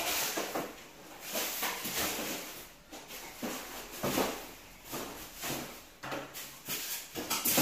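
Cardboard box and packing material being handled and pulled about: irregular rustling and scraping, several bursts a second, with no steady tone.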